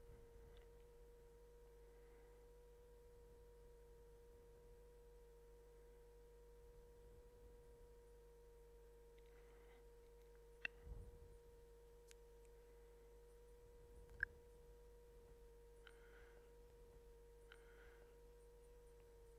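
Near silence: a faint, steady single-pitched hum, with two faint clicks about eleven and fourteen seconds in.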